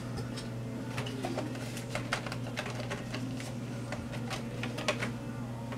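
Irregular small clicks and taps of hands working a black plastic display frame, over a steady low hum.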